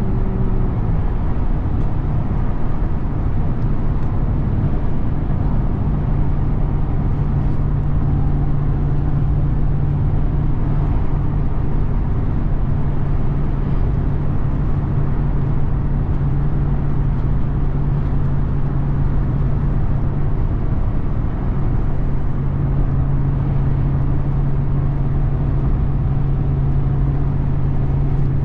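2021 Ram 1500 TRX's supercharged 6.2-litre Hemi V8 running at a steady cruise over low road rumble. The engine note drops in pitch just after the start, then drops a little again about three quarters of the way through.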